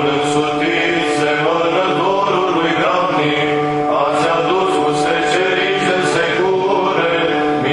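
Orthodox church chant from a paraclis (supplicatory service): a melody sung over a steady held drone (ison).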